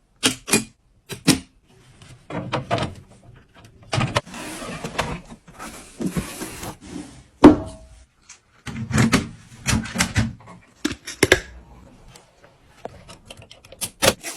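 Gaming PC parts being handled and fitted by hand: a string of sharp clicks and knocks with stretches of rustling and scraping. A single loud knock comes about halfway through.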